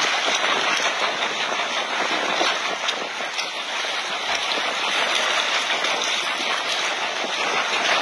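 Steady rushing hiss of seawater moving around the boat, even throughout.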